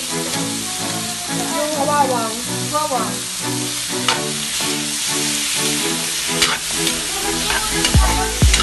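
Diced meat sizzling in a stainless steel wok. From about halfway a metal utensil stirs it, scraping and clicking against the pan a few times. Background music with a steady beat plays underneath.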